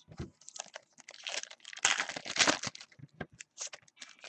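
Trading cards and their pack wrappers being handled: irregular rustling and crinkling with light clicks as cards are moved and set down, busiest around the middle.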